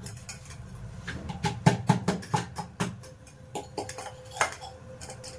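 Pestle pounding and grinding in a mortar by hand, crushing peppercorns, tulsi leaves and raw ginger into a paste: a run of irregular sharp knocks, heaviest about two seconds in.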